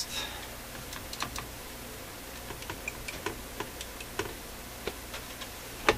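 Scattered light clicks and taps from handling the bench multimeters, with one louder click just before the end. A steady low hum runs underneath.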